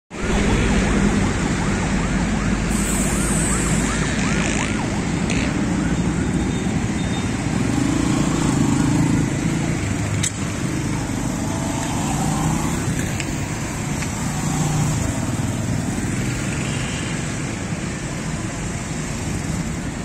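Car on the road: a steady rumble of engine and road noise, with faint wavering whistles in the first few seconds.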